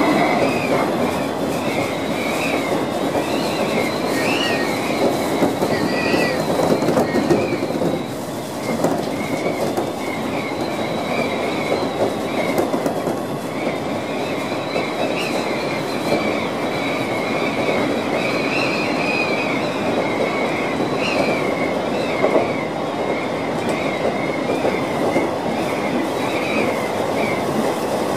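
Chichibu Railway 1000 series electric train, a former JNR 101 series, running at speed heard from the front cab: a steady rumble of wheels on the rails with a wavering high-pitched whine above it.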